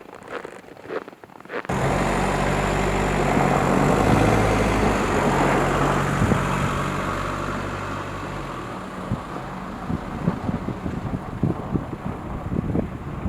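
VW T5 campervan running, starting abruptly about two seconds in with a steady engine hum and road or wind noise. It fades after about eight seconds into gusty wind noise.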